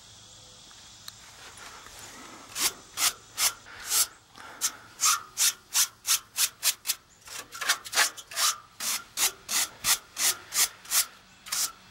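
A stiff brush scraping grass and caked dust off the fins of a heat pump's double-row outdoor coil, in quick back-and-forth strokes. The strokes start about two seconds in and come about two to three a second.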